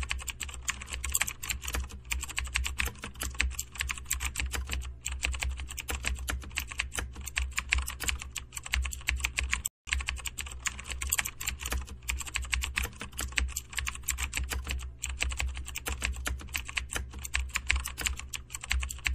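Typing sound effect of fast computer-keyboard clicks, a dense continuous run over a steady low hum, breaking off for a moment about ten seconds in and starting again.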